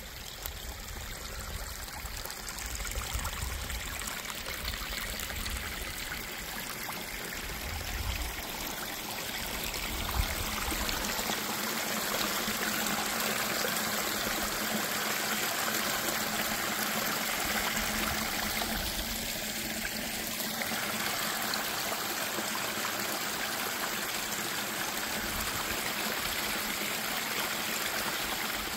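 Small rocky creek running over and between boulders: a steady rush and trickle of water that grows louder about ten seconds in. The normally dry creek is flowing after weeks of heavy rain.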